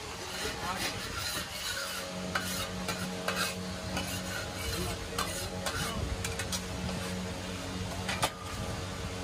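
Soft rustles and light taps as halved burger buns are handled and pressed down onto a steel tray, with one sharp metallic click about eight seconds in. A steady low hum and hiss run underneath.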